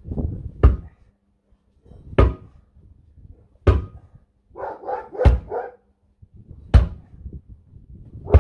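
Sledgehammer blows on a tractor wheel during a tyre change, six sharp strikes about one every one and a half seconds. A dog barks a few times between the fourth and fifth blows.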